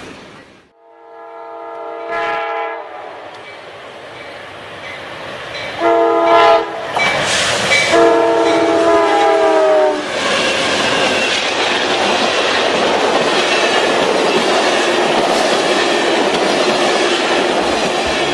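Multi-chime diesel locomotive horn sounding three blasts, the last ending about ten seconds in. Then a passenger train rushes past with steady rail clatter.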